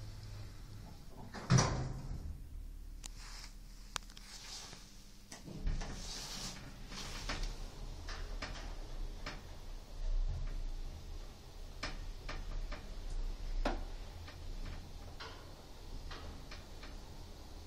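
Old Hammond & Champness lift: the sliding doors shut with a loud knock about a second and a half in, then the car starts off with a steady low hum from its drive, with scattered clicks and knocks as it travels between floors.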